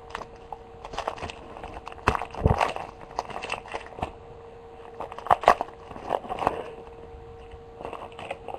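Football trading-card pack being torn open by hand, its wrapper crinkling in scattered crackles that come loudest about two seconds in and again around five to six and a half seconds.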